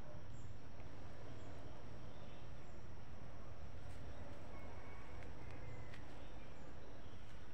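Outdoor ambience: a steady low rumble of wind on the microphone, with faint, short high-pitched chirps about once a second and a few light clicks.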